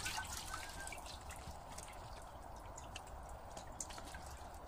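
Water dripping and trickling off a large common carp as it is lifted out of a holding tank, falling back into the water below. Louder in the first second, then faint scattered drips.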